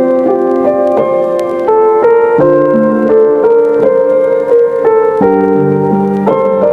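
Background music: a gentle piano melody with held chords.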